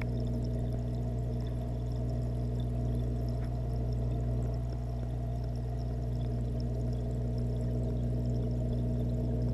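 Aquarium filter running, heard underwater through a GoPro's waterproof housing: a steady low hum under a muffled rush of flowing water.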